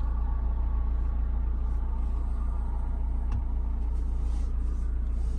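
Steady low rumble inside the cabin of a VW T5 van, from the van running.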